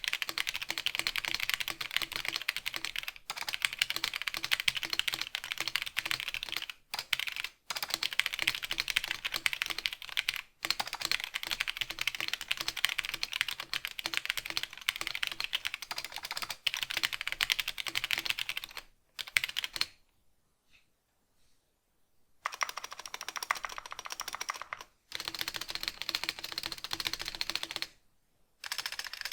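Fast, continuous typing on a cardboard-cased 65% mechanical keyboard with linear red switches: a dense patter of keystrokes, broken by a few short pauses and a stop of about two seconds roughly two-thirds of the way through.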